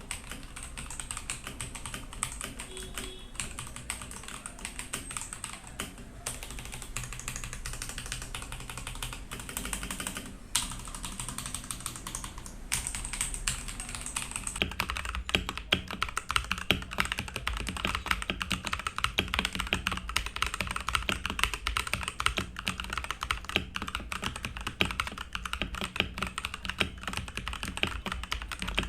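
Continuous typing on a Ganss GS3087T Li mechanical keyboard: a fast, steady stream of key clicks. The clatter turns louder and brighter about halfway through.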